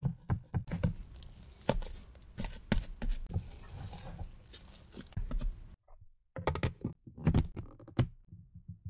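Wet, sticky whole wheat ciabatta dough being stretched and folded by hand in a plastic tub: irregular squelches, slaps and sticky tearing sounds. After a short break, a plastic lid is pressed onto the tub with a quick run of sharp clicks and snaps.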